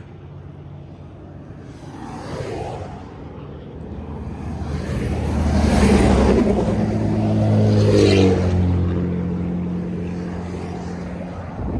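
A motor vehicle passing by: its engine and tyre noise grow louder, peak, and fade away with the engine note dropping in pitch as it goes past.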